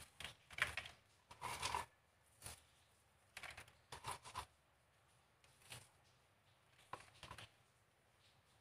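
Faint, irregular rustles and light clicks of crisp fried shallots being pinched up by hand and sprinkled into a plastic mixing bowl, with the small shallot container handled and set down.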